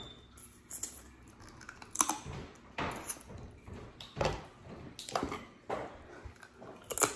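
Boiled crawfish shells cracking and being peeled apart by hand, with close-up eating mouth sounds. Irregular crackles and clicks, with sharper ones about two seconds in and near the end.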